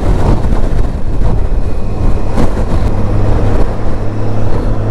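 2016 Honda Gold Wing's flat-six engine running, with loud wind buffeting on the microphone. The engine gives a steady low hum under a rough low rumble.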